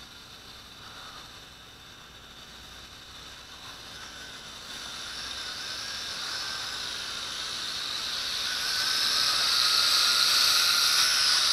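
Small quadcopter's motors and propellers whining, growing steadily louder as the drone flies in close, the pitch wavering as the throttle changes. A steady high hiss runs underneath.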